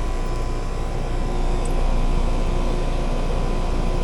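Heat pump outdoor unit running in cool mode: a steady hum from the compressor under the whir of the condenser fan.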